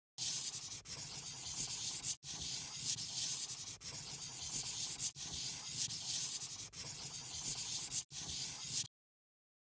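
Scratchy coloring sound effect of a pen rubbing back and forth on paper, laid over a digital fill. It runs steadily with brief breaks about every second and a half, and stops shortly before the end.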